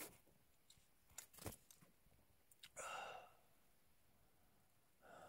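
Faint sipping and small clicks at a drinking-tube mouthpiece, then a breathy sigh about three seconds in.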